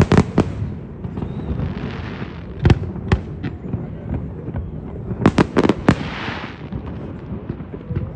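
Aerial fireworks bursting: a pair of sharp bangs at the start, two more about a third of the way in, and a quick run of four a little past halfway, with a crackling hiss trailing after some of the bursts.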